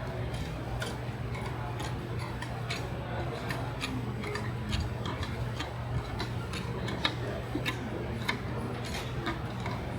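Sharp metallic clicks at irregular intervals, about one or two a second, from an adjustable wrench working the nuts on a pump's tie rods. A steady low hum runs underneath.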